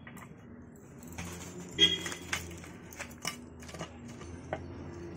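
Small shop goods such as bead necklaces and trinkets clinking and rattling as they are handled on a glass counter: a handful of sharp clicks and clinks, the loudest about two seconds in with a brief high ring.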